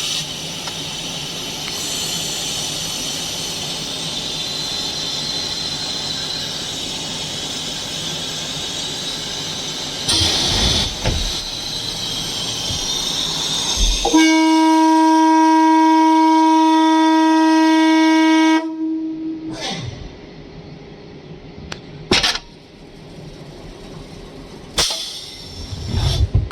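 Plastic welding machine running through a weld cycle. A steady hiss plays for most of the first half. A loud, even buzzing tone follows for about four seconds and stops abruptly, then a few sharp clacks.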